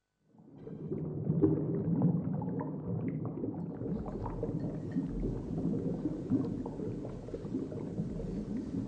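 Water bubbling and gurgling as heard underwater, with many small pops over a low steady rumble.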